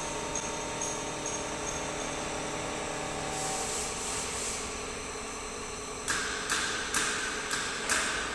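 Pneumatic PVC window-profile welding machine: a steady electrical hum, a short hiss of air about halfway through, then, from about six seconds in, a quick series of sharp clacks, each followed by a brief hiss of compressed air as its air cylinders and valves actuate.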